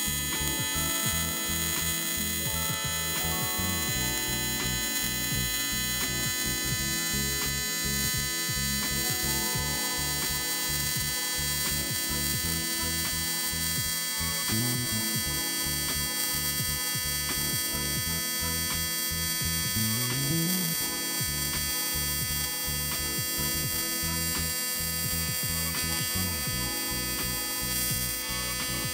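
AC TIG welding arc on thin aluminum, a steady electric buzz with many overtones, its lower tone rising briefly a couple of times near the middle.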